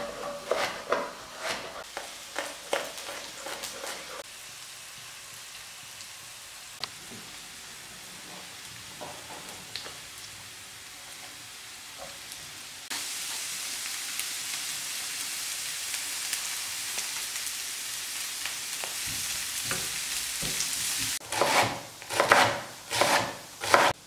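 A chef's knife chopping carrots into strips on a wooden cutting board in quick, even strokes. Then a low frying crackle, and about halfway in a loud steady sizzle as the carrot strips drop into hot oil with sliced garlic. A few loud knocks come near the end.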